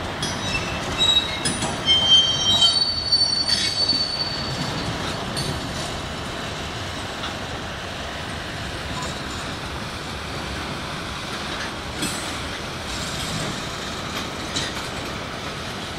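Freight train rolling on the rails. Several high-pitched wheel squeals come in the first four seconds, then a steady rolling noise of the cars.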